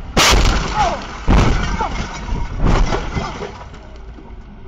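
A car crash heard from inside the car: a loud smash as something strikes the windshield and the glass breaks. Two more heavy impacts follow, about a second and a second and a half apart.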